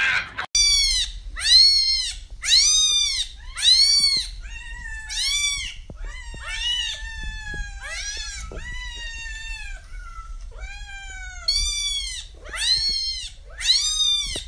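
Cat meows, repeated a dozen or so times: short calls that rise and fall in pitch, with a few longer, flatter meows in the middle.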